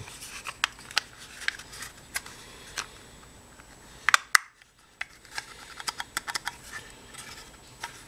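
Plastic light-switch box and lid being handled and pressed together: scattered sharp clicks and light rubbing and scraping of hard plastic, with the loudest clicks about four seconds in.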